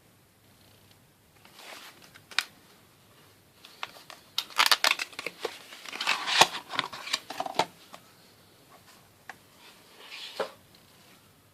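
Handling of a small screwdriver set's plastic case and bits: a sharp click, then a few seconds of dense clicking and clattering, and another click near the end.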